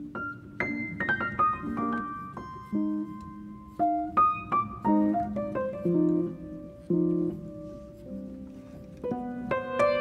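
Background piano music: single melody notes over low chords, with a quick falling run of notes about a second in.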